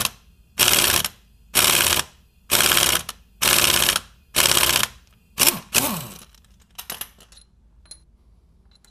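Impact wrench hammering in repeated short bursts, about one a second, pressing the harmonic balancer onto the crankshaft of a Chrysler 2.4L engine. The bursts stop about six seconds in and are followed by a few light clicks.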